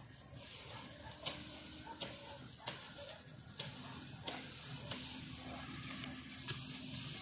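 Footsteps crunching on dry cut stubble and straw, about one step every two-thirds of a second, over a steady hiss.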